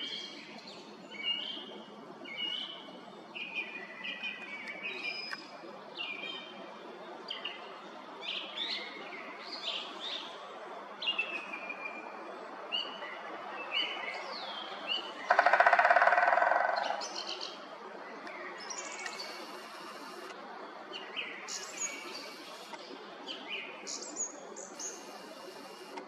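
White-backed woodpecker drumming on a tree trunk: one fast roll of knocks lasting about a second and a half near the middle, the loudest sound. Around it, small birds give short, high chirps and calls.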